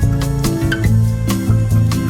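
Background music: plucked acoustic guitar with a steady rhythm.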